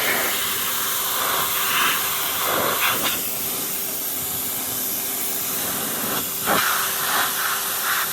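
Pressure washer jet spraying a golf cart's panels and seats: a loud, steady hiss of water, with a steady hum from the washer underneath, and the spray's sound shifting as the jet sweeps across different surfaces.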